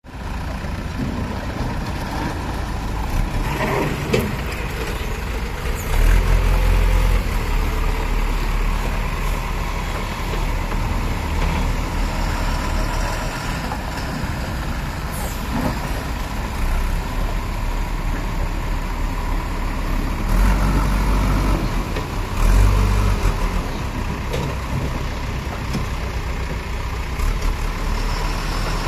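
Diesel engines of heavy Tata tipper dump trucks running low and steady as the trucks crawl through mud. The engines surge louder about six seconds in, and again about twenty and twenty-two seconds in.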